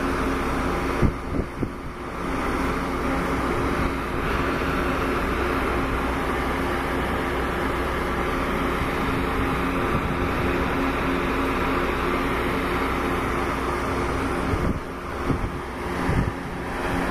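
Metra stainless-steel bilevel passenger cars rolling past at speed: a steady rush and rumble of wheels on rail, with a few sharp knocks about a second in and again near the end.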